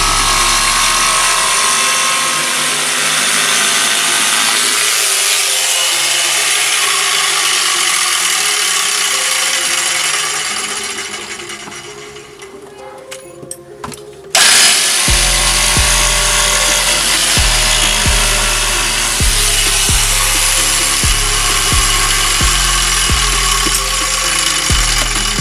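Electric jigsaw cutting a speaker opening in a wooden cabinet, a steady high buzzing that fades out about eleven seconds in. About fourteen seconds in, background music with a steady bass beat starts abruptly.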